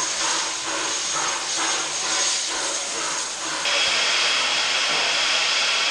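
Steam locomotive 520 hissing steam with a rhythmic pulse about twice a second. A few seconds in this gives way abruptly to the steady hiss of steam escaping from standing locomotive R766.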